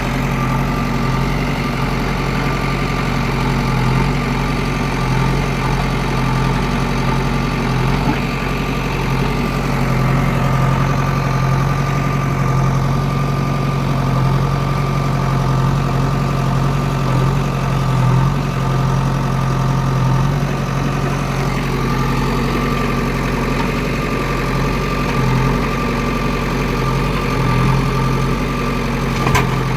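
Diesel engine of a JCB 3DX backhoe loader running steadily at an even speed, with a single sharp click near the end.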